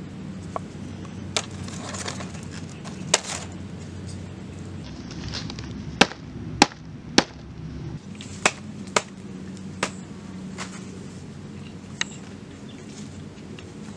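A knife and cleaver striking a thick round wooden chopping block: single sharp knocks at irregular intervals, with three loud ones in quick succession about six to seven seconds in, over a steady low background hum.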